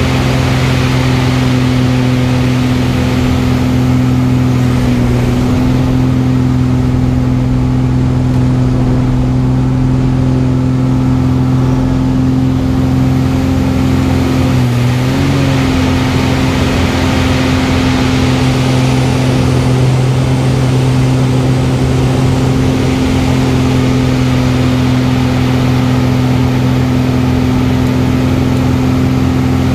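Aerobatic plane's piston engine and propeller droning steadily, heard from inside the cockpit, with a brief dip in pitch about halfway through. Airflow rush swells and fades as the plane manoeuvres.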